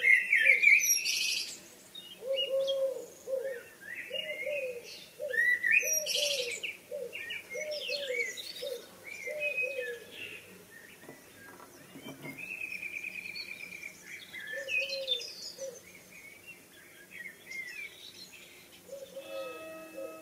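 Evening birdsong: several songbirds chirping and whistling in short, varied phrases, over a low call repeated in a series of soft cooing notes. Near the end a few steady held tones come in.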